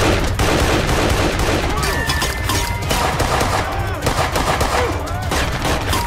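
Heavy gunfire in a shootout: many shots in quick succession from several guns at once, with no let-up.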